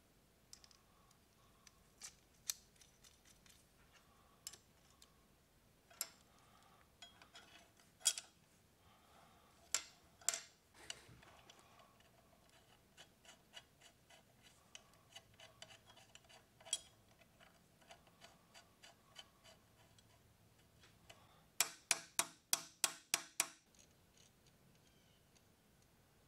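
Steel parts and hand tools clicking and clinking as a chain grinder is put back together on a steel workbench: scattered light taps and clicks, then a quick run of about eight sharp metal clicks near the end.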